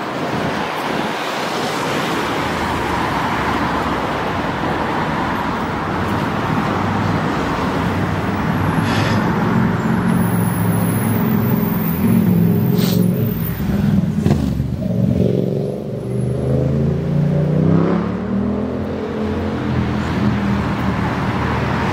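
Road traffic passing on a street, a steady rush of cars and tyres. From about halfway through, a vehicle's engine runs close by, its pitch rising and falling as it accelerates and changes speed.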